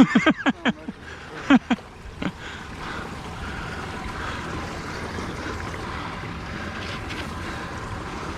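Water rushing steadily out of a freshly unplugged culvert pipe into the pond. It starts under a few short bursts of a man's voice or laughter in the first two seconds.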